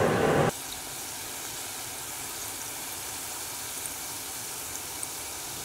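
Dough balls deep-frying in hot vegetable oil, the oil sizzling with a steady hiss. It is louder for the first half second, then settles to a quieter, even sizzle.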